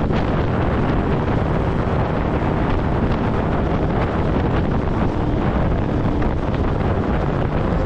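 Steady wind and road noise of a car driving, picked up by a dashcam microphone.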